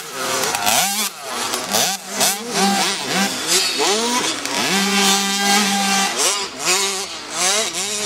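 Small two-stroke youth motocross bikes racing, engines revving up and dropping back over and over as the riders shift and throttle through the corners, with one high note held for about a second midway.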